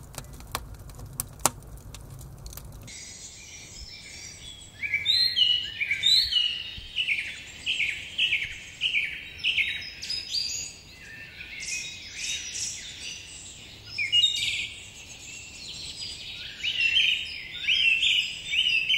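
Campfire crackling with sharp pops for the first few seconds. Then, after a cut, birds sing: phrase after phrase of short, quickly repeated high chirps.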